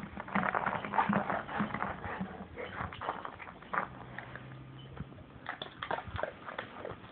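A golden retriever pawing at and mouthing an orange rubber ball: a dense, irregular run of clicks, scrapes and wet mouth noises, busiest in the first couple of seconds.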